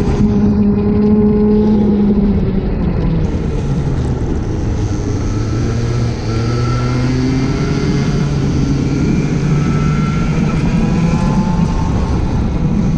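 Racing go-kart engine heard from the kart's own onboard camera, running hard. The pitch drops about two seconds in, dips briefly once more, then climbs steadily again as the kart accelerates.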